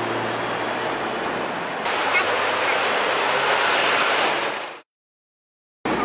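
Running noise inside a Hong Kong double-decker tram, with a low steady hum at first. About two seconds in it cuts to a louder, hissing rush, which drops out to dead silence for about a second near the end before the cabin noise returns.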